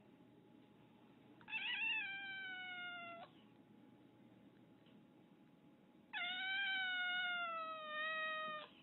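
Domestic cat meowing twice: two long, drawn-out meows, the second longer than the first, each sliding slightly down in pitch.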